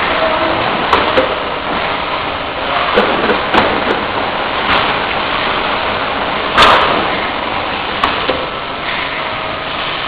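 Automatic oil-filling line running: a multi-nozzle filling machine gives a steady mechanical noise with scattered knocks and clicks, and one loud short burst about two-thirds of the way through.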